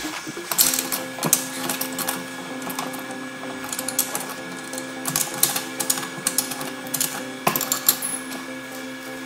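Metal clicks and clinks from a tubular box spanner working the check nut on a brush cutter's blade head as the nut is tightened anticlockwise. The clicks come irregularly over a steady low hum.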